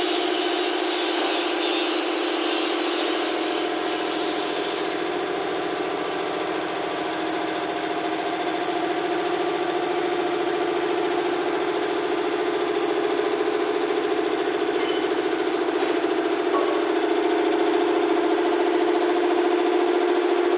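High-pressure air-cooled reciprocating air compressor running steadily, its pump beating at a fast, even rate over a constant hum.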